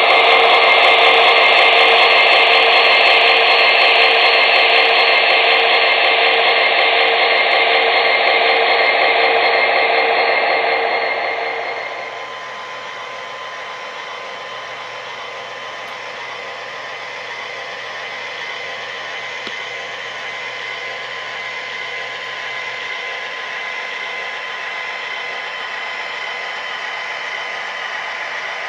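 MTH HO-scale model of a Norfolk Southern SD70ACe diesel locomotive running past, with its motor and onboard diesel engine sounds. The sound fades out about twelve seconds in, leaving a softer steady mechanical hum that grows slightly louder near the end.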